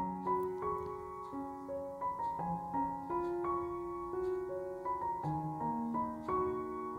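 Instrumental background music: a keyboard tune of held notes that change pitch every half second or so.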